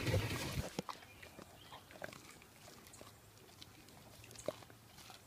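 Dog nibbling kernels off a corn cob held in a hand: scattered small crunching clicks. A loud rustling bump comes right at the start, as the dogs' faces press close to the phone.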